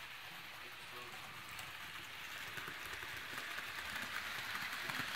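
HO scale model trains running on the layout: a steady rushing whir of wheels on the rails, dotted with faint clicking, that grows louder over the second half.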